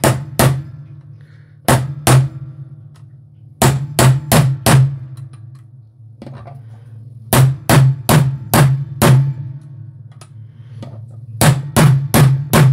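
Hammer tapping a punch to drift a pistol's dovetailed rear sight sideways out of its slot. Sharp taps come in short bursts of two to six quick strikes, with pauses of a second or two between bursts; the sight has not yet broken free.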